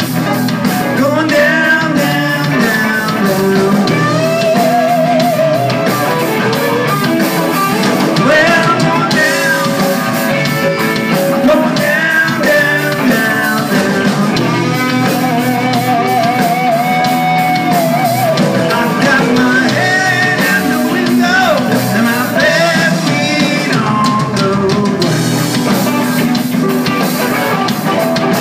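A live rock band playing a blues-rock number, with electric guitars, bass guitar and a drum kit, and a male singer at times.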